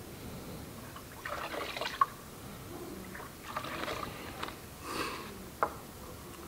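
Liquid pouring and trickling in a few short spells as ʻava (kava) is prepared in the bowl, with two sharp knocks, one about two seconds in and one late.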